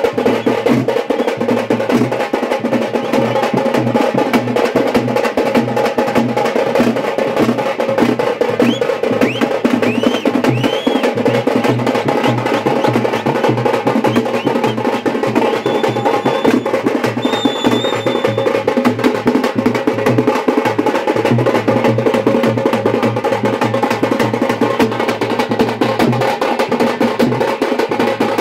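A street drum band: several large drums beaten hard and fast with sticks in a driving, continuous rhythm. A few short high whistling notes cut through about a third of the way in and again just past the middle.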